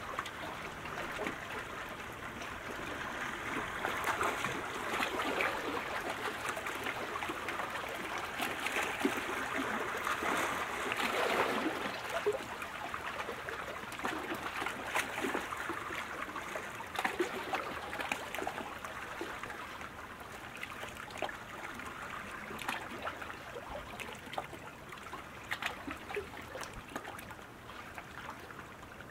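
Water splashing and trickling in a continuous, irregular patter of small crackles. It is a little louder around the middle and softer in the last third.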